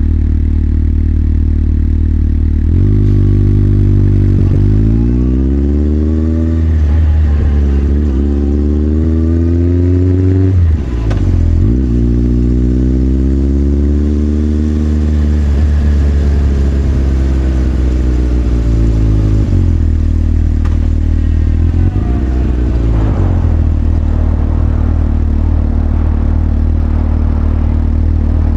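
Motorcycle engine ticking over steadily, then pulling away with the revs rising, a brief dip at a gear change about 11 seconds in, and a steady cruise. Near 20 seconds the revs drop back, with a short blip of the throttle a couple of seconds later, and it settles back to a steady idle.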